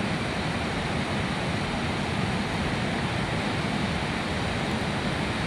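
Steady rush of river rapids, an even, unbroken roar of moving water.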